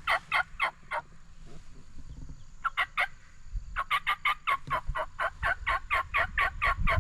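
Turkey yelping: a short run of sharp, evenly repeated notes, a few more a couple of seconds later, then a longer fast run of about twenty notes.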